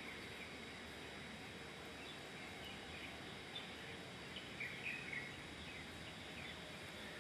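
Faint steady outdoor background hiss with a thin high steady tone, and a few short bird-like chirps around the middle.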